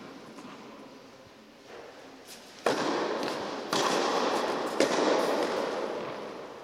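Tennis ball struck hard with a racket on a serve, then two more sharp ball impacts about a second apart, each echoing with a long reverberation in an indoor tennis hall that fades slowly.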